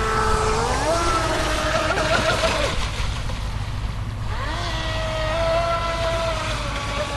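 Pro Boat Widowmaker RC boat's electric motor whining as it runs across the water. The pitch climbs as the throttle opens, drops about two and a half seconds in, climbs again a little after the midpoint, and falls away near the end.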